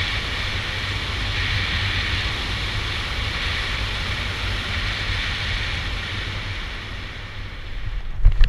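Airflow rushing over the microphone during a powered paraglider flight: a steady rush with a gusty low rumble. Near the end the rush fades and gives way to irregular low buffeting thumps.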